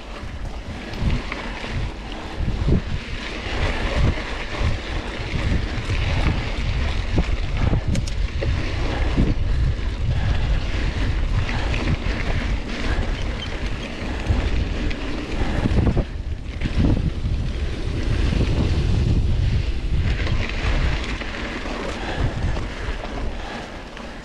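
Wind buffeting the microphone over the rumble of a mountain bike riding on a trail, with a few sharp knocks along the way.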